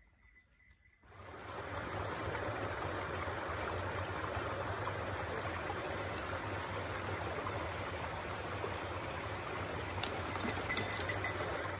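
Small woodland brook running over rocks, a steady rushing that starts abruptly about a second in. A few light clicks near the end.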